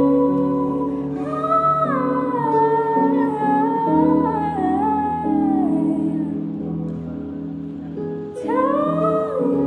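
Female vocalist singing a slow, legato melody with guitar and keyboard accompaniment, her voice sliding between notes in long phrases. The voice drops out for about a second before a new phrase begins near the end, leaving the guitar and keyboard chords ringing.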